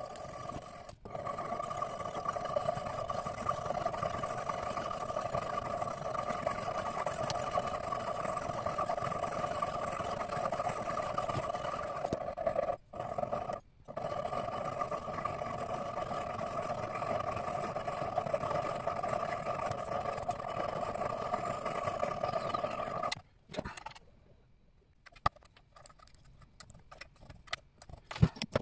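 Mini-lathe spindle motor running at a steady speed with a constant whine, broken twice briefly midway, then stopping about 23 seconds in.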